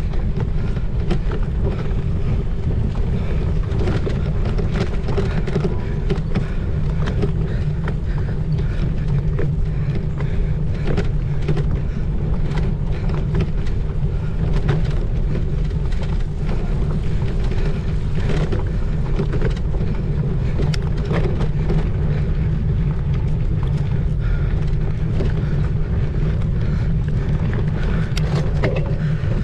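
Steady wind rumble on the microphone of a camera riding along on a cyclocross bike, with frequent small clicks and rattles from the bike jolting over rough ground.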